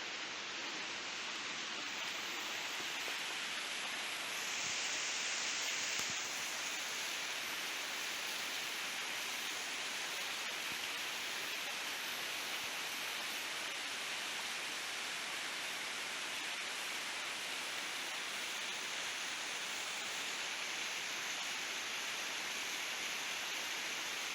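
A steady rushing hiss with no distinct events, swelling slightly about five seconds in.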